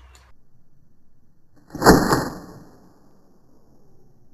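A single loud impact about two seconds in, with a short ring that dies away within about a second: a 10 mm steel ball shot from a slingshot striking its target.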